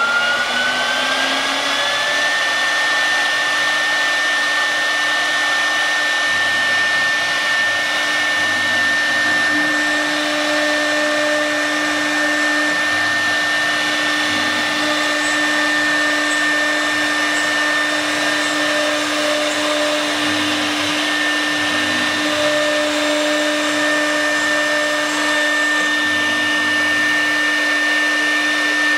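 CNC wood router's spindle whining, its pitch rising over the first two seconds as it spins up, then running at a steady high pitch while the bit cuts shapes into a board.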